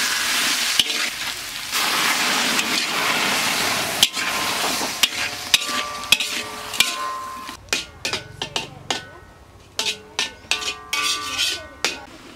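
Sliced luffa gourd and egg sizzling as they are stir-fried in a steel wok, with a metal spatula scraping and clinking against the pan. The sizzle fades about two-thirds of the way in, leaving sharp knocks of the spatula on the wok.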